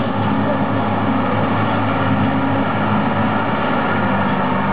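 Heavy vehicle engine running steadily, a low hum with a constant rushing hiss over it; its pitch shifts slightly partway through.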